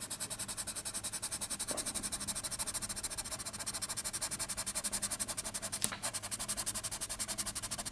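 Coloured pencil scratching on paper in rapid back-and-forth shading strokes, a quick even rhythm of about a dozen scratches a second, with one sharper click near the end.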